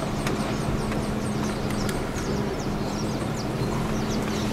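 A car driving along from inside the cabin: a steady engine hum over low tyre and road rumble, with many quick, high chirps from birds outside.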